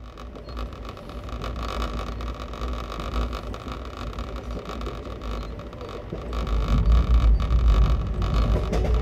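Passenger train running at speed, heard from inside the moving coach: steady rumble and rail noise with a heavy low-end buffeting, growing louder about two-thirds of the way through.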